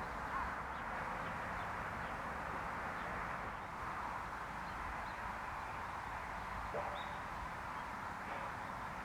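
Outdoor ambience: a steady background hiss with a few faint, short bird calls, one a brief rising note about seven seconds in.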